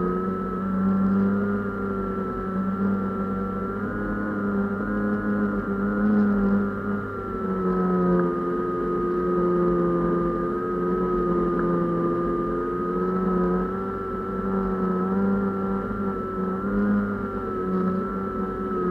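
A small UAV's motor and propeller running steadily, recorded close up by the aircraft's own onboard camera. The pitch drifts slightly up and down as the aircraft banks and turns.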